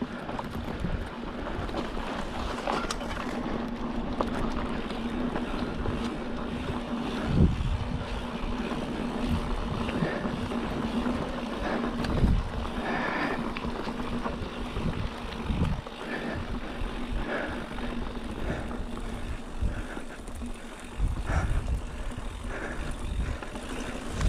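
Mountain bike riding down a dry dirt trail: tyre rolling noise and wind on the microphone, with a steady low hum and several heavy thumps as the bike hits bumps.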